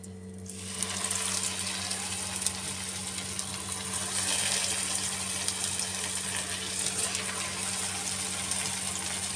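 Bread rolls deep-frying in hot mustard oil in a kadhai: steady sizzling that starts about half a second in as the first roll goes into the oil.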